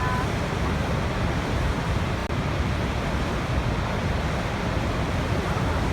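Waterfall: steady rushing and roaring of falling water, with a split-second break about two seconds in.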